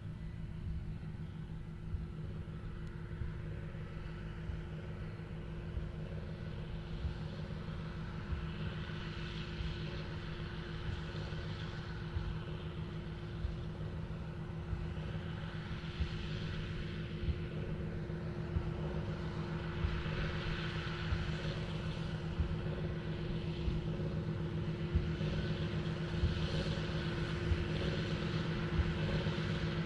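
John Deere 8530 tractor's six-cylinder diesel running steadily under load while pulling a Krone BigPack large square baler, with the baler's working clatter mixed in. The sound grows gradually louder as the rig comes closer.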